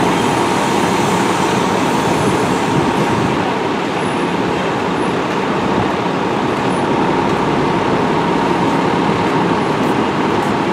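Fire engines' diesel engines idling, a steady even engine noise with a thin steady tone running through it.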